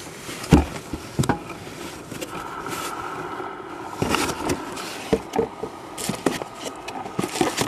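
Packing contents being handled in a cardboard box: paper manual, plastic bags and bubble wrap rustling, with scattered light knocks and clicks.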